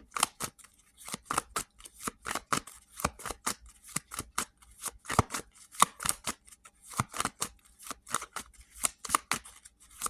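A deck of tarot cards being shuffled by hand: a quick, uneven run of card clicks and slaps.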